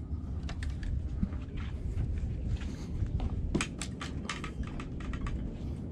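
Footsteps and scattered knocks and clicks on the wooden boards of a fishing pier, densest a little past halfway, over a steady low rumble on the camera microphone.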